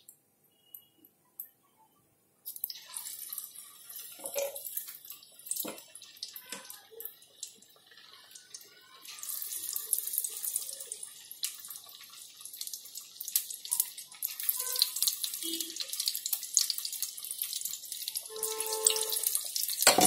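Battered paneer pakoras deep-frying in hot oil in an aluminium kadai, a crackling sizzle that starts suddenly about two and a half seconds in and grows louder about nine seconds in. A few soft knocks come in between.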